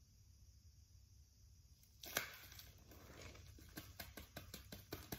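Faint crinkling of wrapping being opened by hand around a new pilot bearing: a sharp crackle about two seconds in, then a quick run of small crackles and clicks.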